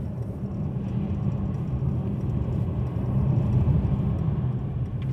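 Car driving along a snow-covered highway, heard from inside the cabin: a steady low rumble of road and engine noise.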